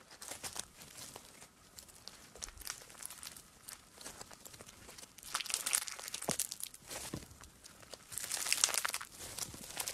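Fluffy slime with beads mixed in being squeezed and stretched by hand, giving dense crackling pops of trapped air. The crackling grows louder about five seconds in and again near the end.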